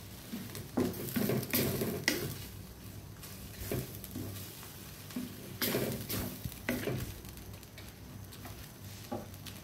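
Wooden spatula stirring and scraping minced pork and coconut milk around a non-stick wok, in uneven clusters of strokes, over a low sizzle from the frying pan.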